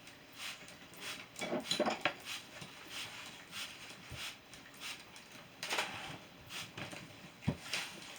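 Hand trigger spray bottle squirting a chemical coating in short hissing puffs, about two a second. There is a dull thump near the end.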